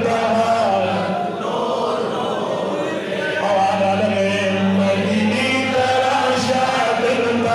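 A Pashto naat sung unaccompanied by a male reciter over a microphone, with long held notes, and men of the congregation chanting along in chorus.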